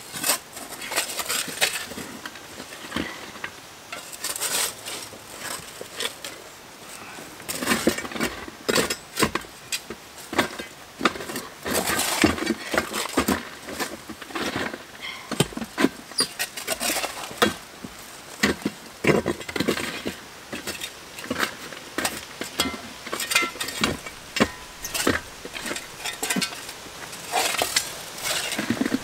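Rocks and soil being placed and packed by hand as backfill around concrete form tubes: irregular knocks, clinks and scraping.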